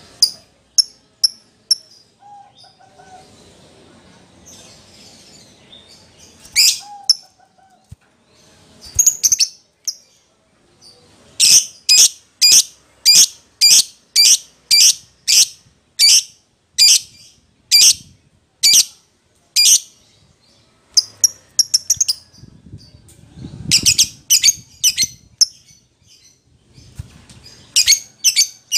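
Lovebird giving sharp, high chirps in bouts, the agitated 'emosi' calling of a fighter lovebird; through the middle it chirps in a steady run of about two a second.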